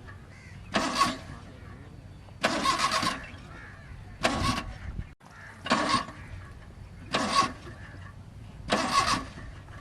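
Suzuki Mehran's starter cranking the engine in seven short bursts, about a second and a half apart. The engine never catches: it is failing to start.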